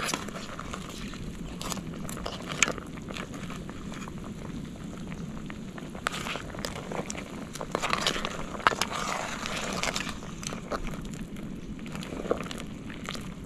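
Wood cooking fire crackling under a pot of soup at the boil, with a steady low rumble and many small crackles and clicks, a few of them sharper.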